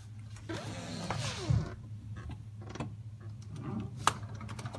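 A sliding glass patio door being slid open, its panel scraping along the track for about a second, with scattered light clicks and one sharp click near the end.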